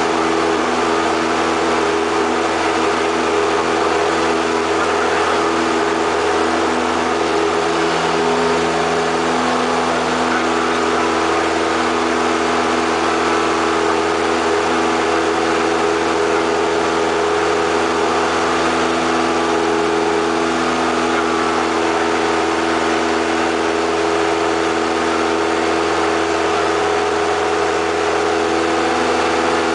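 Single-engine light airplane's piston engine and propeller running, heard from inside the cockpit as a steady drone that does not change in pitch or loudness.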